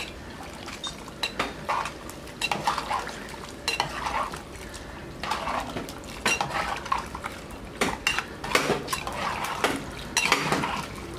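A perforated steel ladle stirring cluster figs in water in a clay pot, clinking and scraping irregularly against the pot's sides as the liquid swishes.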